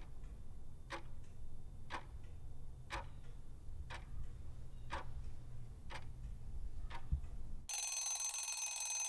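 Quiz countdown-timer sound effect: a clock ticking about once a second over a low steady hum, then, as time runs out near the end, a bright alarm ringing for about two seconds before it cuts off.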